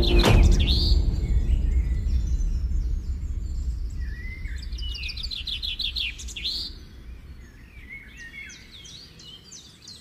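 Songbirds singing. A quick run of high chirps comes near the start and again about five seconds in, with slower warbling notes later, over a low background rumble that fades out about seven seconds in.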